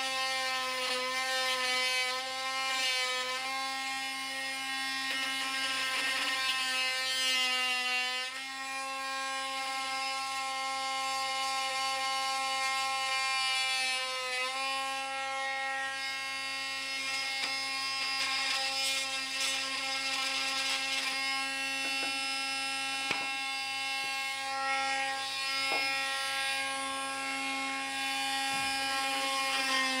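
Parkside 20V cordless oscillating multi-tool running with a wood-cutting blade, a steady high buzz as it plunge-cuts into a pine strip. Its pitch sags briefly now and then as the blade bites under load.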